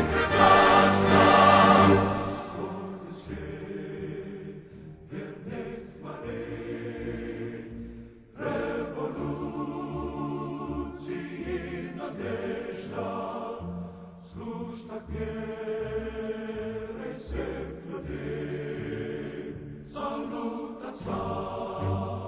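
Background music: a choir singing slow sustained chords over instruments, loud at first, dropping back about two seconds in and swelling again about eight and a half seconds in.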